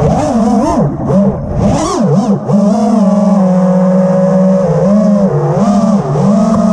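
Brushless motors and propellers of an FPV freestyle quadcopter on a 6S battery, heard from its onboard camera. The whine swoops up and down quickly through the first couple of seconds as the throttle changes during manoeuvres, then holds a steady pitch with brief dips.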